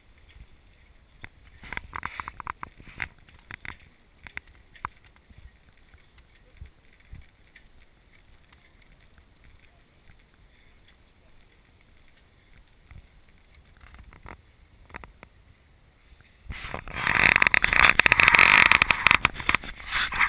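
A sailing dinghy rattling and knocking on its wheeled launch dolly as it is pulled over pavement, with scattered clicks and a cluster of knocks a couple of seconds in. Near the end a loud, close rubbing and scraping takes over, as the boat-mounted camera is handled.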